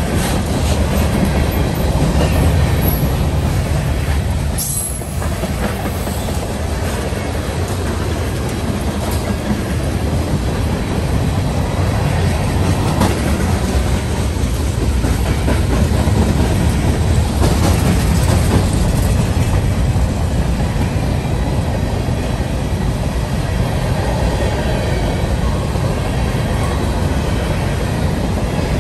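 Freight railcars rolling along the track: a steady low rumble with scattered clicks, dipping briefly about five seconds in.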